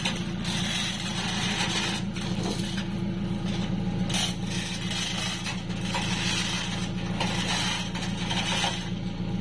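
An engine idling steadily, with intermittent metallic scraping and clattering over it.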